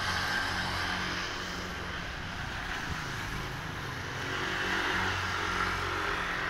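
A motor running steadily under a rushing hiss, which swells at the start and again about five seconds in.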